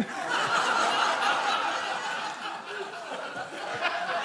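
Studio audience laughing, breaking out suddenly and carrying on throughout.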